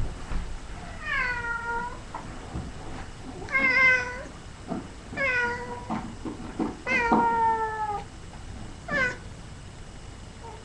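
A domestic cat meowing five times, each meow falling in pitch, as it is played like bagpipes. A click sounds at the very start, and a few faint knocks come in the middle.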